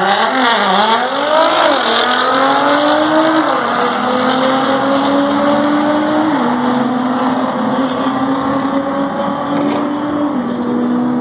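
Nissan GT-R (R35) accelerating flat out down a drag strip, its twin-turbo V6 climbing in pitch and dropping back at each upshift, several shifts in a row.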